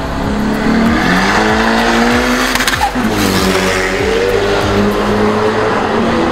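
Toyota Hilux pickup with a swapped-in Honda B16 four-cylinder engine accelerating hard down a drag strip. Revs climb, drop at an upshift about three seconds in, then climb again.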